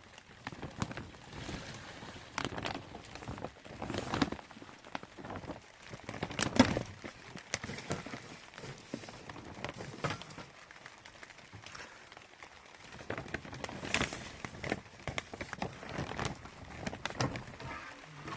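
Irregular knocks and taps over a faint rustling haze, the loudest knock about six and a half seconds in and another near fourteen seconds.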